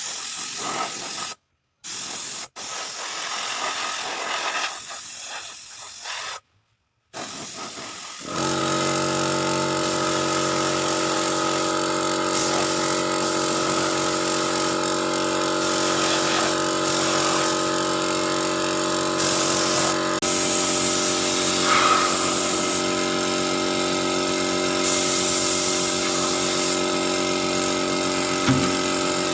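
Spray gun hissing, broken by a few short cuts. About eight seconds in, a 2 HP piston air compressor starts and runs steadily under the hiss.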